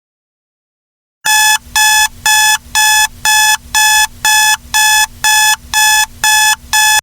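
Suit pressure alarm of a Martian-style wrist computer prop: an electronic beep repeated about twice a second, a dozen times, starting a little over a second in after silence.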